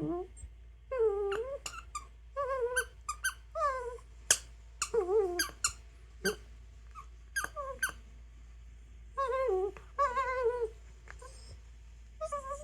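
A dog making strange, short wavering vocal noises, one after another with a pause partway through, while her squeaky toy gives sharp squeaks as she plays with it.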